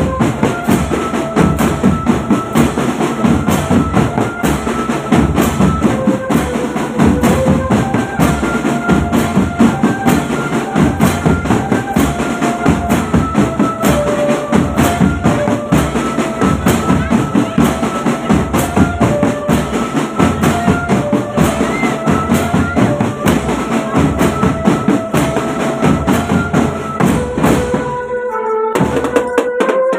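Marching drum band playing: snare drums, bass drums and hand cymbals beating a fast, steady rhythm under a melody line. The sound breaks off briefly near the end, then picks up again.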